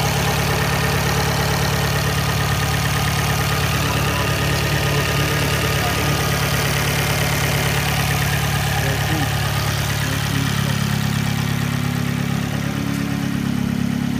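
Car engine idling steadily, its note shifting slightly about ten seconds in.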